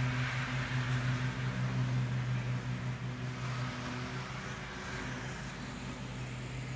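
A steady low machine hum with a hiss over it, easing slightly after about four seconds.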